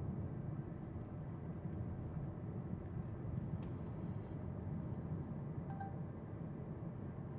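Steady road and tyre rumble inside an electric car's cabin while driving. A faint click about three and a half seconds in and a brief soft ding a little before six seconds.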